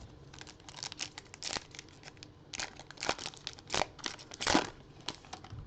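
Trading-card pack wrapper being torn open and crinkled, in a run of irregular sharp crackles.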